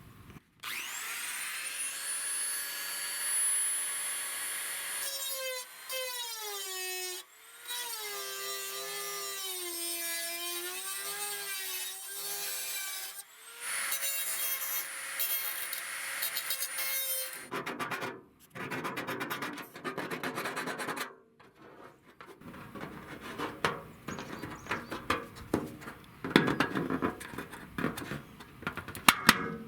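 Dremel rotary tool with a heavy-duty cutoff wheel running at high speed with a steady whine, its pitch dipping and wobbling as the wheel bites into the microwave's outer shell and cuts the switch hole. In the second half a rougher, crackling scraping noise takes over.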